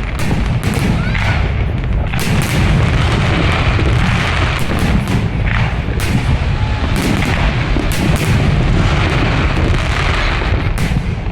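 Fireworks display: many sharp bangs from shells bursting in quick succession over a continuous low rumble of booms.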